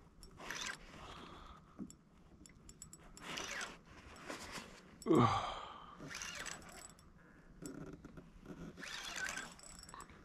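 A man breathing hard while straining to bring in a hooked fish on rod and reel: several heavy breaths and sighs, with a short falling groan about five seconds in. Faint clicks come between the breaths.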